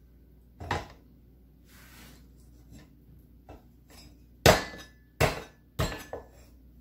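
Chinese cleaver chopping shrimp on a wooden cutting board: a single sharp chop, a few quieter handling knocks, then three loud chops in quick succession near the end, the blade ringing briefly after some of them.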